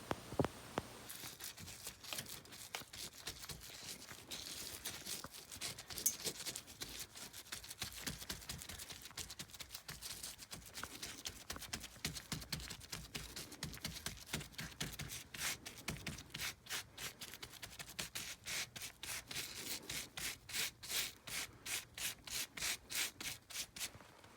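Hand tool scraping and rubbing rough lime plaster on an old wall in repeated strokes, settling into a steady rhythm of about three strokes a second in the second half.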